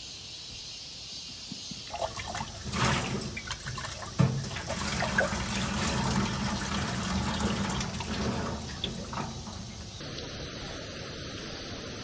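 Water running from an outdoor tap through a short hose, filling and splashing off a cup being rinsed and into the sink, starting about two seconds in. A sharp knock of the cup sounds about four seconds in.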